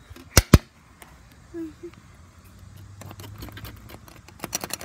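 Two sharp knocks, then a fast run of small clicks and rattles from a white plastic door latch being pressed and worked with a finger.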